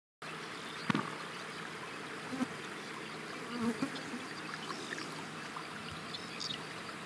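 Flies buzzing close by, now and then nearer, over a steady faint background hiss.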